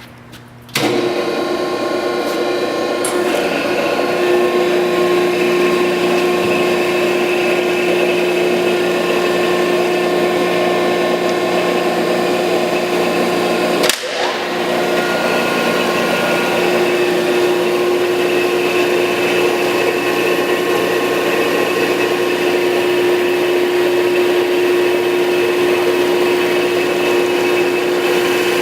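Landis 1R universal cylindrical grinder switched on and running under power, its motors starting abruptly about a second in and then holding a steady whir with a strong steady tone. A sharp click and a brief drop in the sound come about halfway through.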